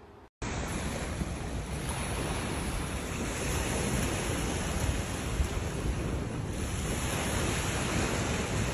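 Steady wind noise buffeting the microphone outdoors. It starts abruptly about half a second in.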